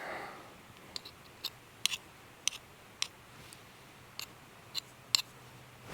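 About a dozen light, scattered clicks and taps of a kitchen utensil as smashed garlic is worked out of its dish or press.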